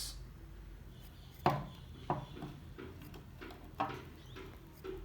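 A few light knocks and taps of rock specimens being handled and set down on a hard surface, the sharpest about a second and a half in.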